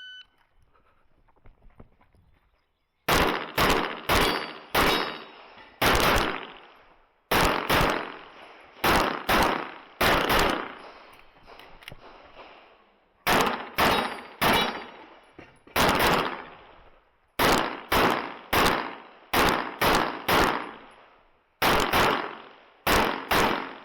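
Shot timer's start beep, then about three seconds later a string of handgun shots during an IPSC course of fire. The shots come mostly in quick pairs and threes, with short pauses between groups, and the last shot lands about 23 seconds after the beep.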